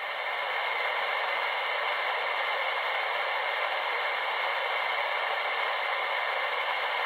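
Steady hiss of band noise from a CB radio receiver on 27.555 MHz upper sideband, with no station speaking, and a faint steady whistle running through it.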